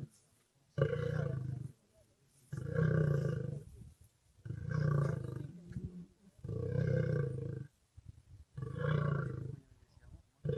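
Male East African lion roaring in a steady series: deep roars about a second long, one about every two seconds.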